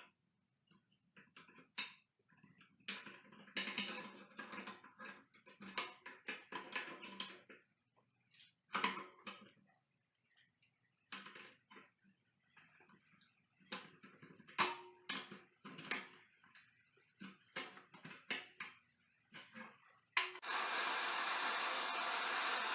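Scattered metal clinks, clatter and knocks of tools and parts being handled, then, near the end, a sudden steady hiss that starts and holds.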